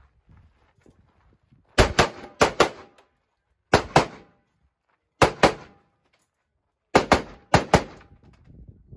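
Gunshots fired in six quick pairs, two shots about a fifth of a second apart in each pair, with a second or so between pairs; each shot is sharp with a brief echo.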